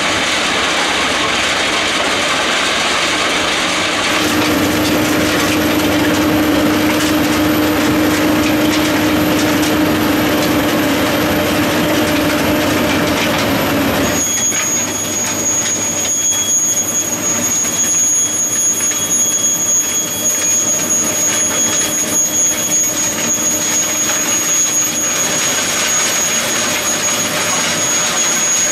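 Railway track maintenance machine (ballast regulator) working along the track on its cleaning pass, with loud, steady machine noise. About halfway the sound turns thinner, and a steady high whine runs on top.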